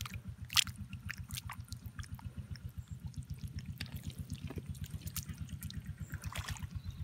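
A small engine running steadily with an even, fast beat, most likely driving the water pump that drains the pond, while muddy water splashes out onto the mud.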